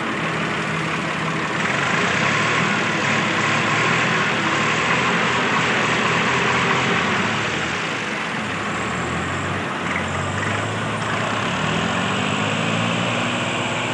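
Swaraj tractors' three-cylinder diesel engines running hard under load as the two chained tractors pull against each other in a tug-of-war. The engine note climbs near the end as one is revved up.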